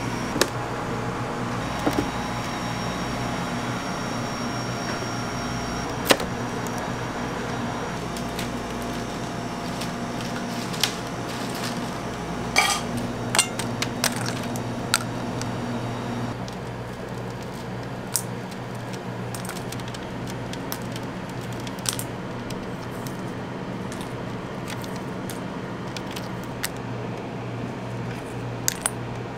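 Crisp dried fruit slices clicking and clattering as they are handled and dropped into a stainless-steel bowl, with a cluster of light clatters about halfway through, over a steady mechanical hum that eases slightly after that.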